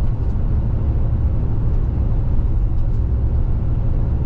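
Car driving at road speed, heard from inside the cabin: a steady low rumble of tyre and engine noise.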